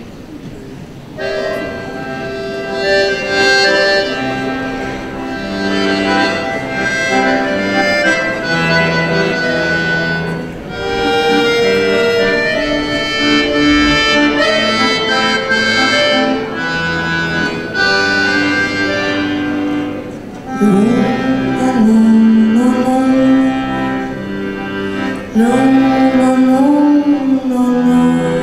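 Accordion playing an instrumental intro in sustained chords and melody. About twenty seconds in, a lower melodic line that slides between notes joins it.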